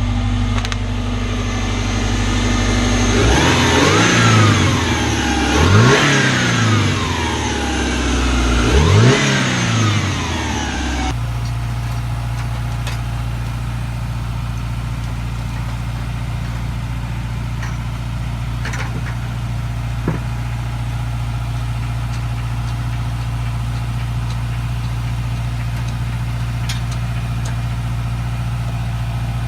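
Subaru flat-four engine running after a manual-gearbox swap. It is revved three times in the first ten seconds, each rev rising and falling back, then settles to a steady idle.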